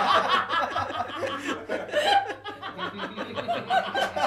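Several people laughing together in short, broken bursts, over a steady low hum.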